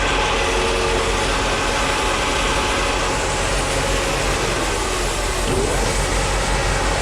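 Belt-driven grain auger running steadily while conveying high-moisture corn: a constant mechanical drone with a low hum.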